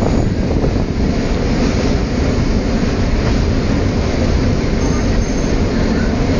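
Suburban passenger train running along the track, a steady, loud rumble and rattle of wheels on rails heard on board.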